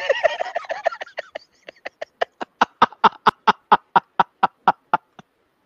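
Laughter in a long run of short, even 'ha' bursts, about five a second, thinning out and stopping about five seconds in.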